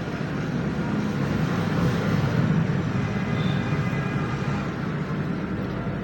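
Hot-air heat gun blowing steadily, heating a circuit board to desolder a component.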